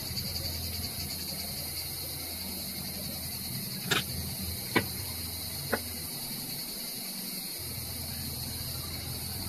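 Three short, sharp clicks about a second apart, a few seconds in, from a utility knife and thin wires being worked by hand, over a steady high chirring of crickets and a low hum.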